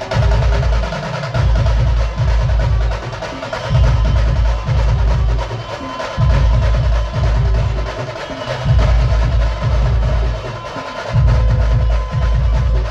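A banjo party band playing loud dance music: heavy, booming drum beats in repeating phrases under a sustained melody line, with busy percussion.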